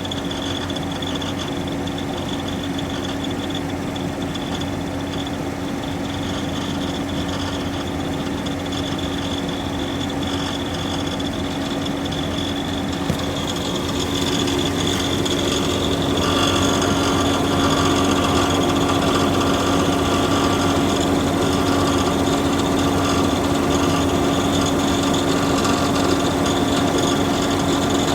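Subaru Outback 3.6R's flat-six engine running with a rattle. The sound grows louder about halfway through and holds there.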